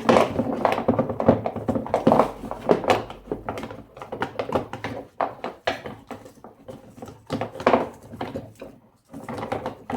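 Ratchet straps and their hard plastic packaging being handled: a busy run of clicks, knocks and crinkling plastic as the strap loops are worked out through the package. The handling pauses briefly near the end.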